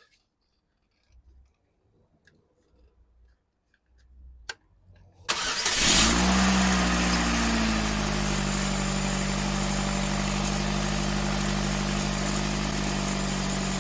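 Vauxhall Astra 1.6 petrol engine starting about five seconds in, revs flaring briefly and then dropping to a steady idle. Before it, near silence with a single faint click.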